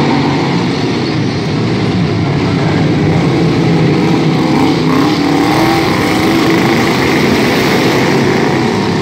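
Engines of several racing riding lawn mowers running together in a continuous buzz. An engine note rises and falls about halfway through as the pack circles the track.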